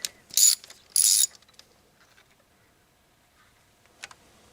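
Ratchet wrench clicking in two short runs on its back-strokes as a spark plug is unscrewed from the cylinder head, coming out easily; then near quiet, with one faint click near the end.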